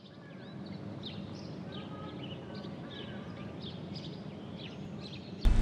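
Birds chirping and whistling in short repeated calls over a steady low rumble of background noise. Near the end it cuts abruptly to a much louder, full-range noise.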